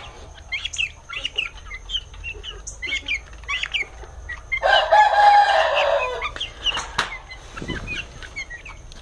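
Caged quail and poultry chirping in short calls throughout, with one loud crow lasting about a second and a half, about halfway through.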